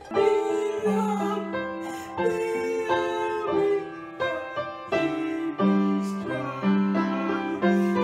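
A boy singing a choir song while crying, with keyboard accompaniment; the melody moves in held, steady notes that change step by step.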